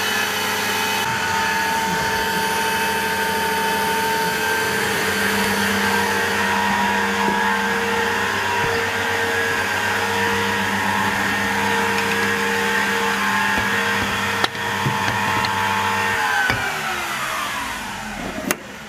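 CNC milling machine running a warm-up dry run with no cutting: a steady motor whine of several held tones that winds down in pitch and stops near the end.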